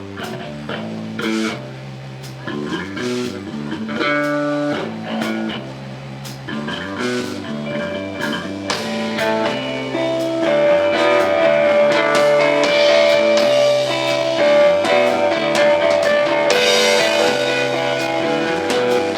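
A live rock band playing: electric guitar, bass guitar and drum kit. About halfway through it grows louder as a long sustained guitar melody comes in over the rhythm.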